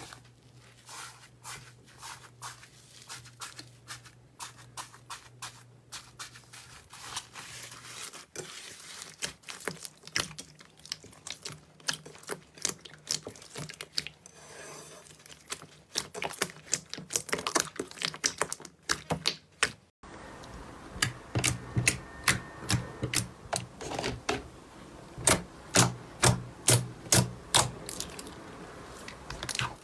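Slime being squeezed and pressed by hand, giving irregular crackling clicks and pops, several a second. About twenty seconds in the sound cuts briefly and a different batch takes over, with louder, fuller pops.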